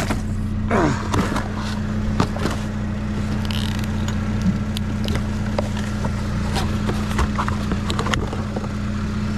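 A vehicle engine idling with a steady low hum, while scattered knocks and clatter come from scrap being handled and pulled out of a dumpster.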